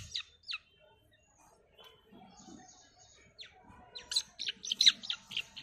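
Grey francolin chick giving sharp, falling peeps while held in the hand: two near the start, one more in the middle, then a quick run of about seven near the end. The calling is the crying of a chick not yet fully tame.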